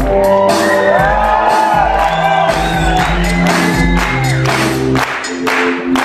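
Electronic dance music with a heavy, deep bass beat and sharp percussive hits, with high gliding whoops and shouts from an audience over it through the middle.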